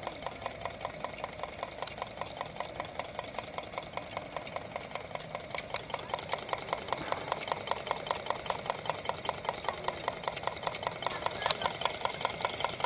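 Homemade wood-fired Stirling engine running slowly and steadily, with an even knock about four to five times a second as it drives a small brushed motor used as a generator.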